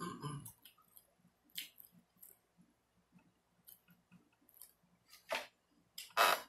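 Close-up mukbang eating sounds: wet chewing and lip smacking in short, scattered smacks and clicks, louder about five and six seconds in.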